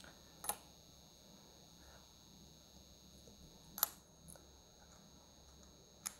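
Three isolated small clicks from a vintage Omega wristwatch and a needle tool being handled with gloved hands: one about half a second in, one near four seconds, one near the end. A faint steady hum sits under them.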